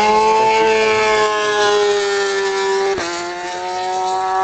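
Racing motorcycle engine at high revs, a high-pitched whine that slowly falls in pitch as the bike goes past. It breaks off sharply about three seconds in and carries on at a slightly lower pitch.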